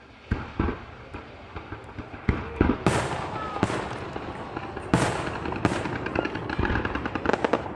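Aerial fireworks shells bursting: a few scattered booms at first, then louder and more frequent booms from about two seconds in, with crackling between them and a quick run of pops near the end.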